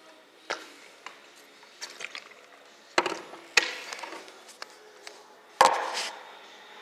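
Knocks, clicks and rustling from a plastic water bottle and a phone being handled at close range. A heavy thump about five and a half seconds in is the loudest, as the phone is set down on a wooden box.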